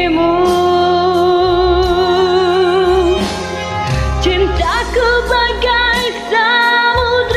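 A woman singing a slow ballad over a karaoke backing track. She holds one long note with wide vibrato for about three seconds, then sings a run of drawn-out notes, over a steady bass line and a regular beat.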